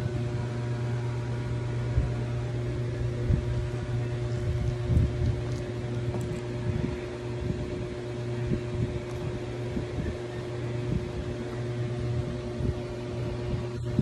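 Steady low mechanical hum, like a running motor, with a few soft low bumps scattered through it.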